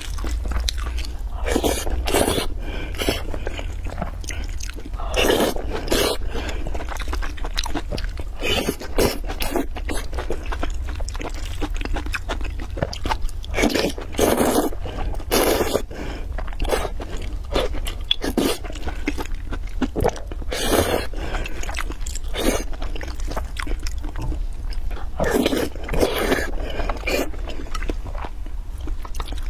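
Close-miked eating: irregular slurps of noodles and wet chewing of soft food, with a wooden spoon scraping in a glass bowl, over a steady low hum.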